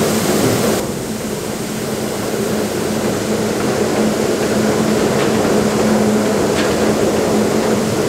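Generator and the grain-handling equipment it powers running steadily as wheat is unloaded from gravity wagons into the pit, with a constant hum. The higher hiss drops off about a second in.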